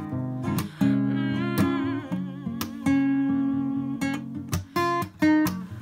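Acoustic guitar strumming chords, each sharp strum left to ring.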